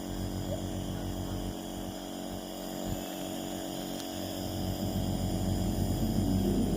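Nebulizer compressor running with a steady electric hum, a little louder in the last couple of seconds.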